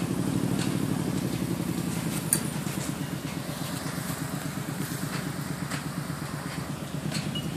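A ride-on miniature train locomotive's engine running steadily with a fast, even low pulse, with a few scattered light clicks over it.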